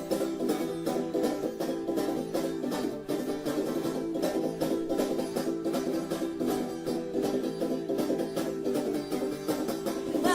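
Background music: fast plucked banjo with other string instruments in a bluegrass style.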